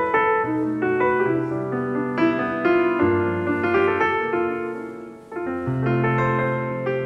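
Piano music: a melody of separate notes over held bass notes, with a brief dip and pause a little after five seconds before it picks up again.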